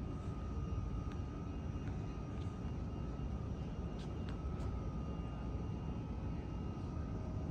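Steady low rumble inside the cabin of a Boeing 737 MAX 8, heard from a window seat, with a thin steady whine above it and a few faint clicks.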